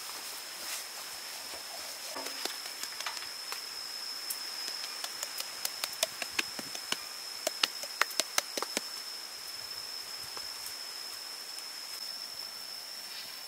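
Insect buzzing on one steady high pitch, with a quick run of sharp clicks and taps about halfway through while a flour-coated fish is handled over a metal bowl.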